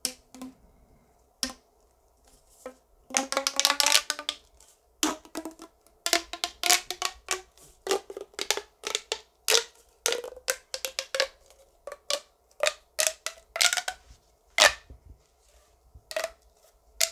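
A ribbed plastic pop tube being stretched and squeezed: a long irregular run of sharp plastic clicks and pops, with a short pitched buzzy stretch about three seconds in.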